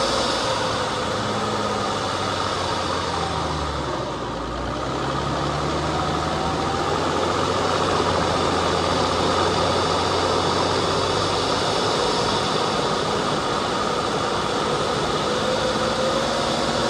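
Off-road vehicle's engine running at low revs as it drives up a dirt trail, its pitch slowly rising and falling, with a dip about four seconds in, over steady rumbling noise.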